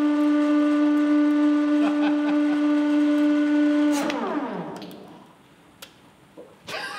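Electric motor running with a steady hum, then switched off about four seconds in and winding down, its pitch falling as it fades.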